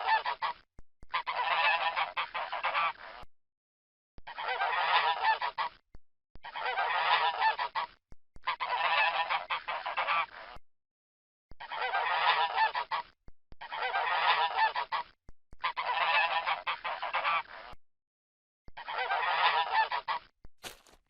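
Geese honking, in about nine separate bursts of a second or two each with short gaps between. A few sharp clicks come in at the very end.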